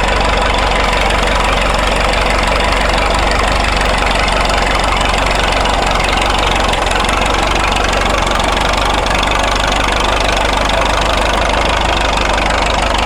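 The engine of a 1927 Fordson Good Roads road roller running steadily.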